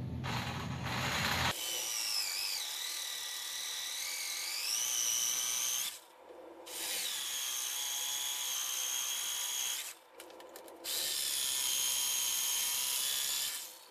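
Corded jigsaw with a fine-toothed blade, run slowly to keep the plastic from melting, cutting a notch in a white plastic board. It gives three runs of motor whine whose pitch wavers, each stopping abruptly, with short breaks about 6 and 10 seconds in.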